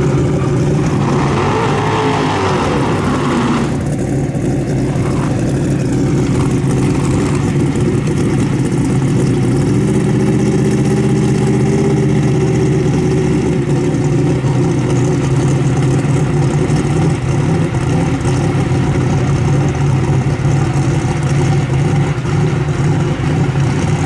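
Drag-racing engines idling loudly and steadily as the cars creep toward the starting line: a supercharged V8 and a twin-turbo Chevrolet S10. The engine note changes briefly between about ten and thirteen seconds in.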